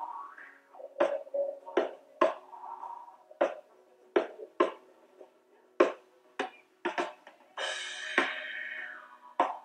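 A recorded drum kit heard through its overhead microphones with the low end cut by an equalizer: thin, bass-less drum hits about once or twice a second, and a cymbal crash ringing out about seven and a half seconds in.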